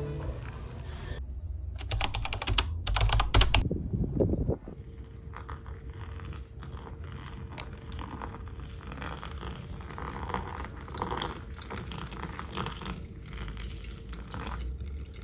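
A few sharp clattering knocks in the first four seconds or so. Then a thin stream of water is poured from a kettle onto coffee grounds in a stainless mesh pour-over filter, trickling into the glass carafe with many faint small ticks.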